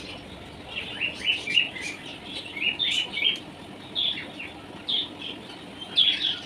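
Small birds chirping: many short, quick chirps, several a second, over a faint steady hum.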